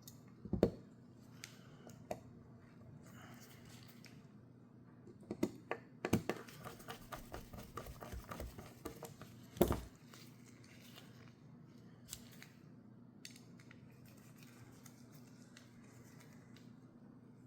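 Small metal clicks and a run of quick ticks from a folding knife being reassembled, its pivot screw driven in with a small driver. The clicks are scattered, with the loudest about ten seconds in.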